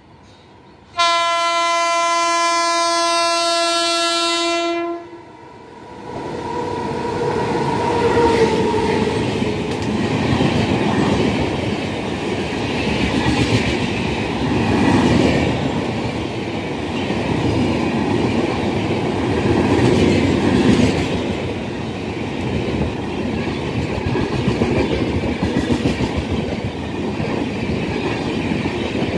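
WAP-7 electric locomotive sounding its horn in one long steady blast of about four seconds. After that come the rumble and clickety-clack of express coaches running through at speed, with regular wheel clicks.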